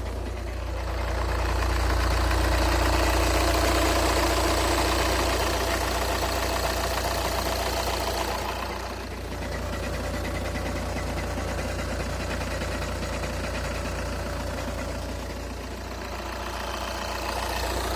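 Škoda Octavia A5 2.0 TDI diesel engine running steadily when cold, with a metallic knock or ringing that shows only on a cold engine.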